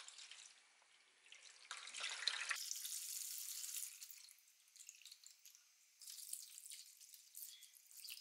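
Rust remover liquid poured into a metal baking tray over a rusty axe head, splashing for about two seconds. Later it sloshes and drips as the axe head is moved about in the liquid.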